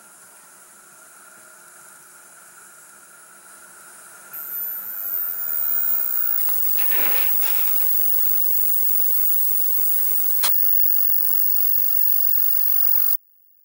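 1967 Nordmende Spectra Color 7000 valve colour TV coming on as its valves warm up. About four seconds in, the high-pitched line-output whistle starts and creeps slightly upward, then a hiss sets in with a brief crackle and one sharp click. The sound cuts off suddenly near the end.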